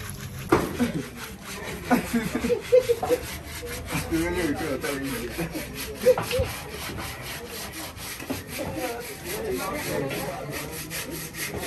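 Quick, regular rasping strokes of a blade working a singed cow's head, scraping or sawing at the charred skin and bone.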